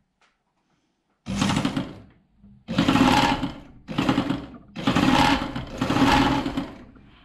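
Sewing machine stitching a seam through fleece knit fabric in five short runs with brief stops between them, starting about a second in. This is the first 0.7 cm line of a French seam.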